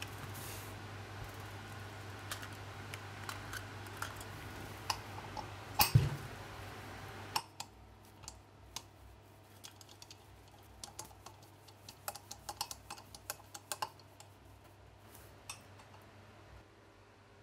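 Steel eyelet-press dies clinking in a metal tin and clicking into place in a cast-iron hand press. The small metallic clicks are scattered and uneven, with one louder knock about six seconds in. A low steady hum underneath stops a little past halfway.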